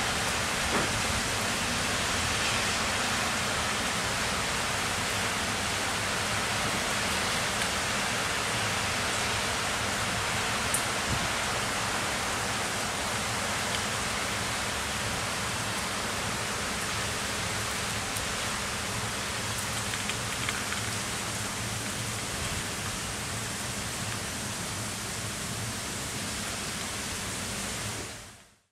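Heavy rain falling steadily, a dense even hiss with a few sharper drop ticks close by. It fades out near the end.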